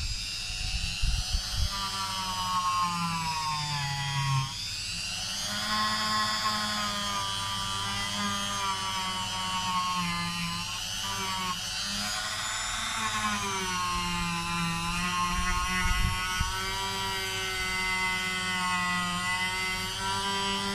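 Dremel rotary tool running with a polishing buff, a steady motor whine whose pitch sags and recovers several times, dipping sharply about four seconds in and again around thirteen seconds. A few low knocks sound in the first two seconds.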